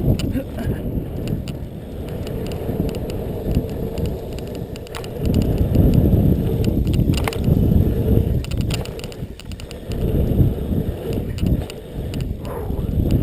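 BMX bike ridden fast around a dirt track: a low rumble from the tyres and air rushing past that swells and dips with the rider's speed, with frequent clicks and rattles from the bike.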